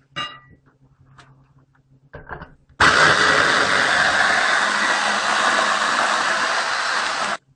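Electric mini chopper running, its blades whirring through onion pieces and mincing them almost to a mush. It starts about three seconds in, runs steadily for about four and a half seconds, and stops abruptly near the end. A few light knocks come first as the chopper is handled.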